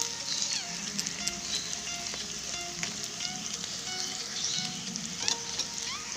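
Chopped onion and spices frying in oil in a kadai, sizzling steadily with many small crackles, just after red chilli powder has been added to the masala.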